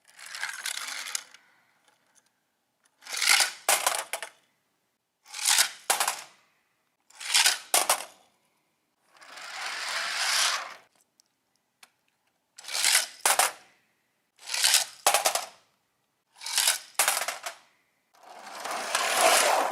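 Small toy cars rolling one after another down a plastic toy slide: about nine short rolling runs, each a second or so long, several ending in a quick clatter of sharp clicks.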